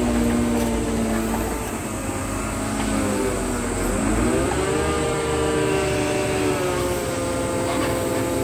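Diesel engine of a grapple-equipped scrap-handling excavator running under hydraulic load. Its pitch sags briefly just before the middle, then climbs back and holds higher as the boom works.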